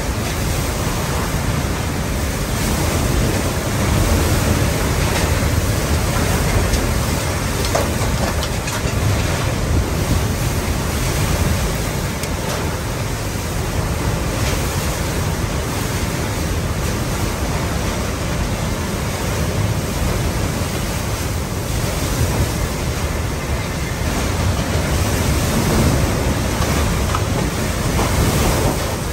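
Hurricane-force wind blowing hard and without let-up, carrying driven rain. It swells in gusts a few times and buffets the microphone.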